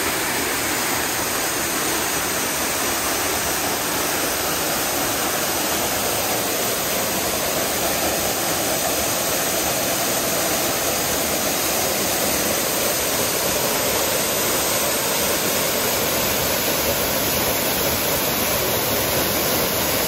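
Waterfall rushing steadily, a dense, unbroken wash of falling water.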